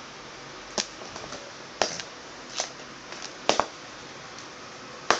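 Several sharp, irregular plastic clicks and knocks from JVC HA-S160 headphones being handled and their headband adjusted, over a steady hiss.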